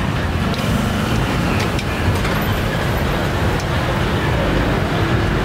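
Busy street ambience: steady traffic noise with a faint murmur of voices and a few sharp clicks.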